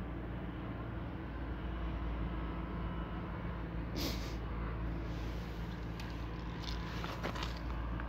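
Low, steady motor hum, with a short rustle about halfway through and a few light clicks after it.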